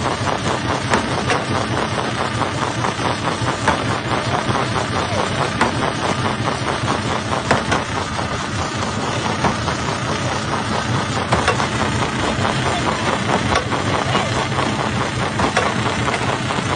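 Jaw-type rock crusher running: a steady engine hum with scattered sharp cracks and knocks of stone being broken.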